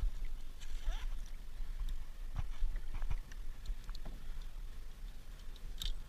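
Scattered light knocks, clicks and rattles of a landing net and a caught bass being handled on a plastic kayak while the hook is worked free, over a steady low rumble.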